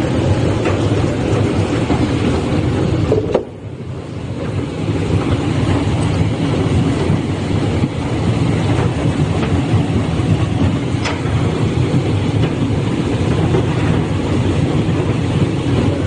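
Shangde Machinery automatic potato peeling and washing machine running with a steady mechanical rumble. The sound briefly drops out about three and a half seconds in.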